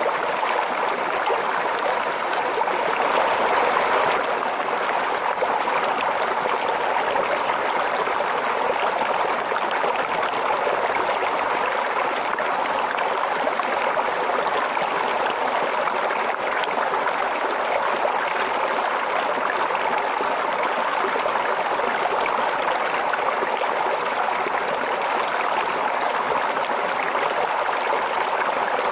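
Small stream babbling and trickling steadily, with a slight swell about three seconds in.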